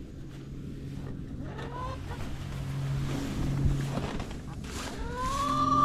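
A vehicle engine running with a steady low hum. A rising pitched tone comes twice, briefly about two seconds in and louder near the end.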